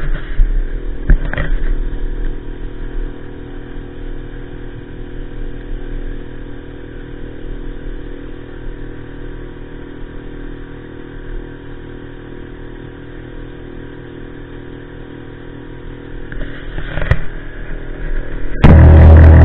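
A small motorboat's engine running steadily at cruising speed, a steady hum with water and hull noise, and a couple of short knocks about a second in and again near the end.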